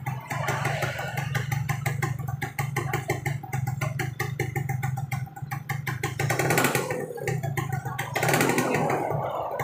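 A motorcycle engine idling steadily with a fast, even pulse. Bursts of rushing noise come over it about six and eight seconds in.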